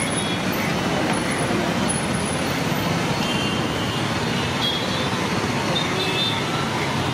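Steady roadside traffic noise with people talking in the background.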